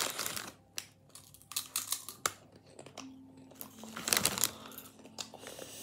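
Potato crisps crunching as they are bitten and chewed: a run of short, sharp, irregular crunches, with some crinkling of the foil crisp packet.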